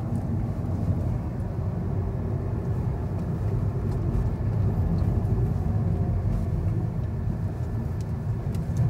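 Lada Vesta Cross driving along an asphalt road: steady low engine and tyre rumble.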